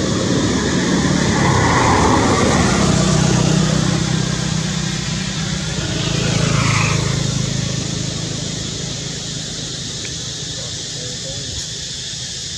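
A motor vehicle's engine running steadily. It swells twice, about two seconds in and again around six seconds, where a falling glide in pitch fits a vehicle passing by, then eases off.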